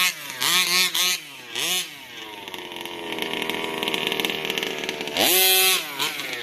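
Small two-stroke petrol engine of a large-scale RC buggy revving up and down in quick bursts over the first two seconds, settling to a steadier, lower run, then revving hard about five seconds in as the buggy pulls a wheelie.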